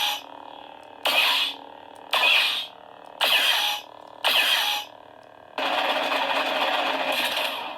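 Lightsaber sound board (Plecto Labs Crystal Focus X) playing through the hilt's 28 mm bass speaker: a steady hum with a sharp half-second effect about once a second. Near the end comes one louder continuous sound lasting about two seconds.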